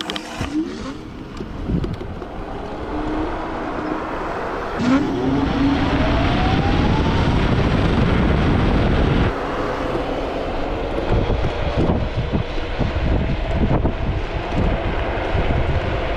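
Electric scooter motors whining and rising in pitch as the scooters accelerate hard up a steep hill, under loud wind buffeting on a scooter-mounted camera and tyre noise on asphalt.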